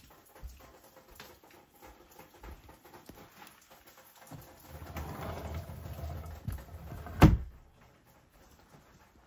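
A wooden sliding door rumbling along its track for a couple of seconds, then a sharp knock as it meets the frame. Soft steps and handling noise come before it.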